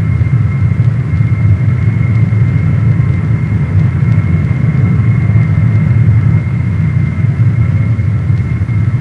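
Lockheed C-5 Galaxy's turbofan jet engines in flight: a steady low roar with a thin high whine held at one pitch.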